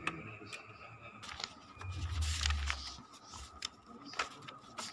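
Epson ink-tank printer starting up after its power button is pressed: scattered clicks and a louder mechanical whirr with a low rumble about two seconds in, over a faint steady high whine.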